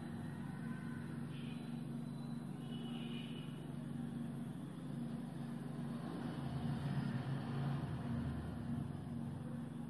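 Steady low hum, swelling a little about six to nine seconds in.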